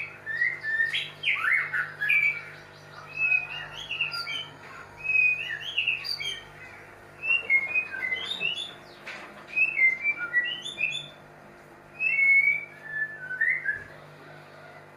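White-rumped shama singing: varied phrases of short, clear whistled notes, coming in bursts with brief pauses between them.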